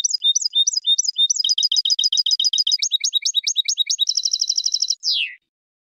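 European goldfinch singing: a fast run of repeated high twittering notes, then a dense buzzy trill, ending with a falling note a little over five seconds in.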